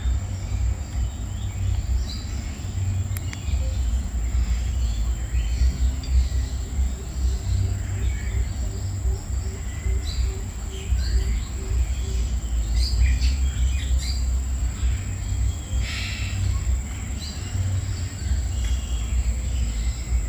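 Outdoor ambience of scattered bird chirps over a steady low rumble and a constant high insect whine. In the middle, a Eurasian hoopoe gives a run of soft, evenly spaced low hoots, about two a second.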